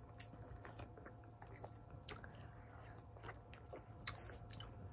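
Faint chewing of sour candy, with soft, scattered small clicks and crunches.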